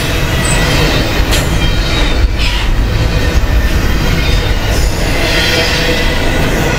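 Double-stack intermodal well cars of a long freight train rolling past: a loud, steady rumble of steel wheels on rail, with a high wheel squeal over it and a couple of short clanks about one and two seconds in.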